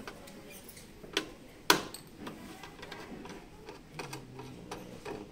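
Small metallic clicks and ticks of a screwdriver backing screws out of a sheet-metal module housing and the box being handled, with one sharp click a little under two seconds in.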